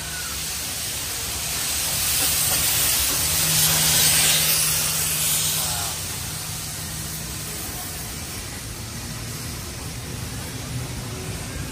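Steam locomotive K153, a Victorian Railways K class 2-8-0, passing underneath with a loud hiss of escaping steam. The hiss swells for a few seconds, peaks about four seconds in, then eases to a quieter rolling noise as its train follows, with a steady low hum throughout.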